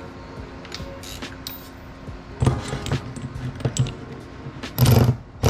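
Small metal hardware (nuts, bolts and a washer) clicking and clinking while a mini bike's rear shock is bolted to its swingarm bracket, then two short bursts of a power tool's motor running the bolt in, about two and a half and five seconds in.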